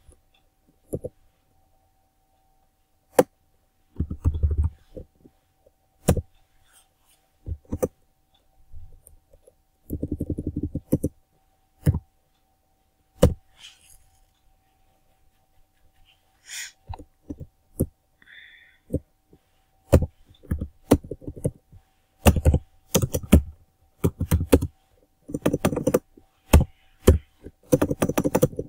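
Computer keyboard typing in irregular bursts of key clicks and dull thumps, with pauses between the bursts. A faint steady high hum runs underneath.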